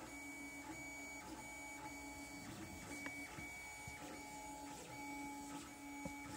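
Lulzbot TAZ 3 3D printer printing: its stepper motors whine in steady tones that change pitch and stop and start every second or so as the print head and bed change direction, with brief ticks between moves.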